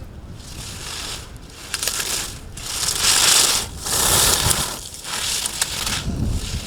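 Skis carving a run of slalom turns on hard-packed snow, a hissing edge scrape that swells and fades about once a second and is loudest near the middle.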